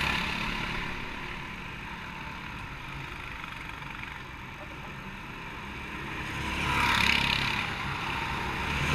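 Go-kart engine running at a steady low idle. A swell of rushing noise rises and fades about seven seconds in.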